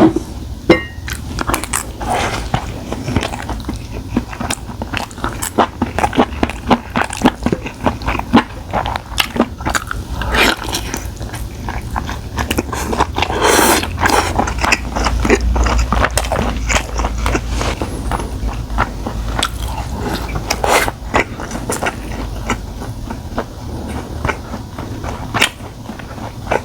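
Close-miked eating sounds of spicy stir-fried webfoot octopus: a steady run of irregular wet biting and chewing smacks.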